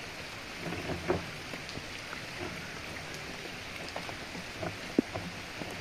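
Steady rain falling, an even hiss, with a few light knocks and taps, the sharpest about five seconds in.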